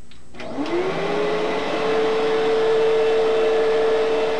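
Fantom Fury upright vacuum cleaner switched on: after a click, its 10-amp motor spins up with a rising whine that levels off within about a second, then runs steadily.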